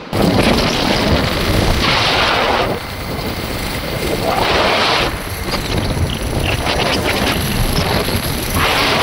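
Wind rushing over the microphone of a moving vehicle, with engine and road rumble underneath. The rushing swells louder three times.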